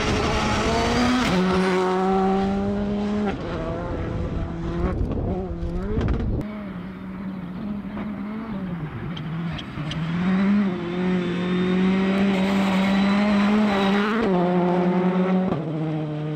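Rally cars at full throttle on a gravel stage, beginning with a Škoda Fabia rally car. The engines rev hard and change pitch sharply several times as the cars shift gear and the footage cuts from car to car, with a few sharp cracks about five seconds in.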